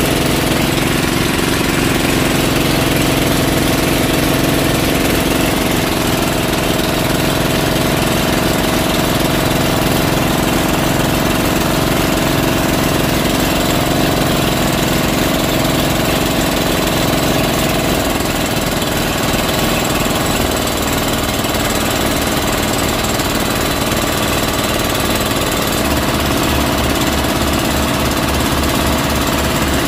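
Small fishing boat's engine running steadily, its note changing partway through.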